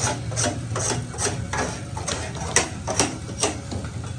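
A string of sharp, irregular clicks and knocks, about three a second, over a steady low hum.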